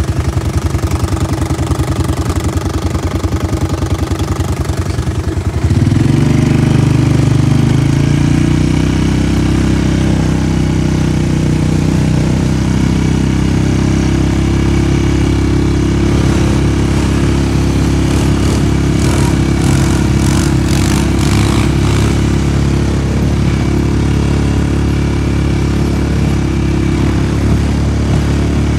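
ATV engine idling with a fast even pulse, then revving up sharply about six seconds in and running steadily under way. A run of light rattles comes partway through.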